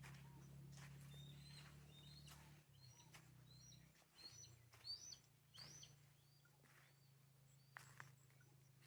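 Faint chirps and short calls of several wild birds in dry caatinga scrub, many quick high notes that bend up and down, thickest in the first two-thirds and thinning out near the end.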